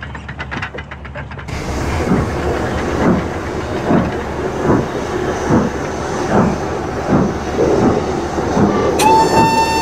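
Steam tank locomotive working slowly, its exhaust chuffing at a little over one beat a second from about a second and a half in. A steam whistle sounds briefly near the end.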